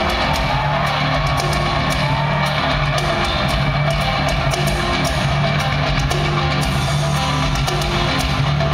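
Live progressive metal band playing loudly in an arena, heard from the audience: drum kit with steady hits over sustained bass notes and electric guitar.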